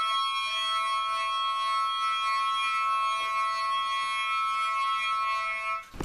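Small handheld toy horn blown in one long, steady note that cuts off abruptly near the end.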